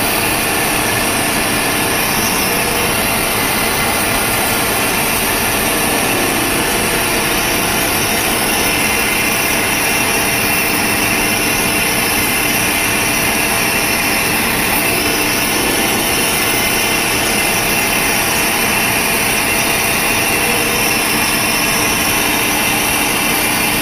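CNC vertical milling machine running, its end mill steadily cutting a metal block: a continuous, even machining noise.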